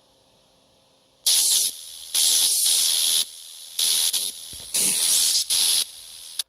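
Loud hissing noise in about five bursts that switch on and off abruptly, starting about a second in.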